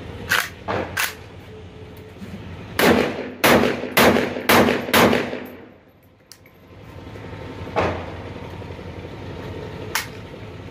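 Darra-made AK-pattern rifle fired one shot at a time. There are three lighter shots near the start, then a quick string of five loud shots about half a second apart, then two more well-spaced shots later on.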